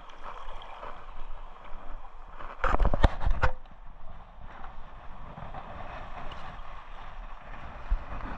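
Water washing against shoreline rocks with wind noise on the microphone, broken about three seconds in by a loud, brief clatter of several knocks and scraping.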